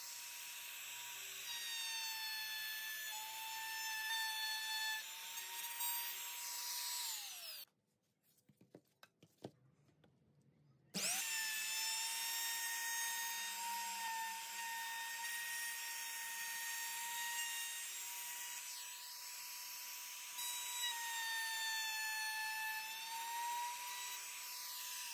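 Compact trim router running with a high steady whine as it cuts along the edges of wooden boards. About seven seconds in it is switched off and its pitch falls as it spins down; after a quiet gap of a few seconds it is started again and runs on.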